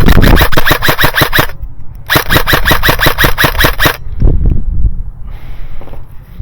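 Airsoft electric gun firing on full auto: two long bursts of rapid, evenly spaced shots, each about two seconds long, the second starting about two seconds in.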